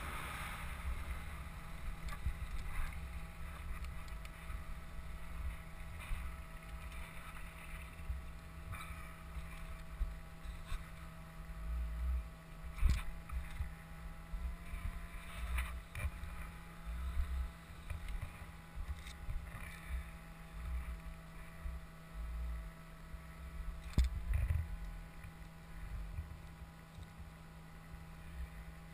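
Wind buffeting a helmet-mounted camera's microphone in uneven gusts as a downhill mountain bike rolls along a paved road, with a few sharp clicks and knocks from the bike.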